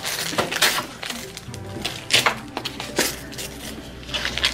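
Background music with steady held tones, over several short bursts of gift-wrap paper being torn and crinkled as a present is unwrapped.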